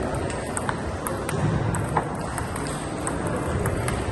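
Table tennis rally: the ball clicks off rackets and table in an irregular series of sharp clicks, over the steady hubbub of a crowded hall.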